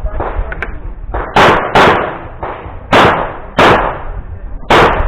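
Gunshots: five loud, sharp shots in quick pairs, two about half a second apart a little over a second in, two more about half a second apart around three seconds in, and a single one near the end, with fainter cracks between them.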